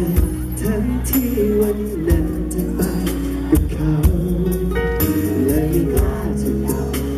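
A male vocalist singing live into a handheld microphone over an amplified pop backing track, with a bass line and a steady beat of about one thump a second.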